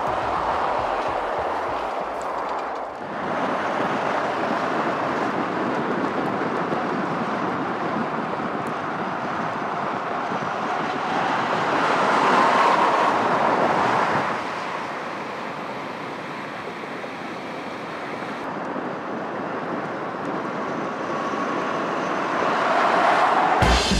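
Ford Super Duty pickup truck driving by on a road: a steady rush of tyre and wind noise that swells loudest about halfway through as the truck passes close, and swells again near the end.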